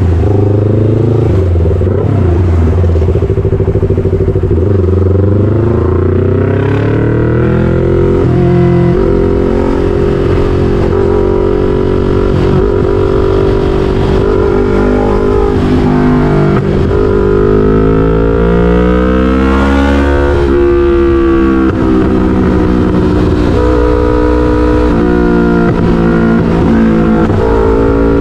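Yamaha MT-03's 321 cc parallel-twin engine running through an SC-Project full exhaust at highway speed. The pitch climbs and falls several times as the throttle opens and closes, with a sharp rise and drop a little past halfway.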